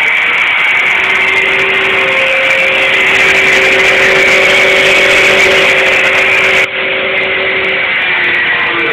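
Angle grinder cutting through the sheet-steel fender lip of a car's wheel arch, its motor whining steadily under load. About seven seconds in the sound dips briefly and turns duller.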